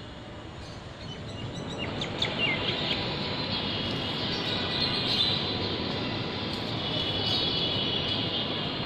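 Birds chirping briefly about two seconds in, over a steady outdoor rumble that swells over the first few seconds. Thin high squealing tones come and go later on.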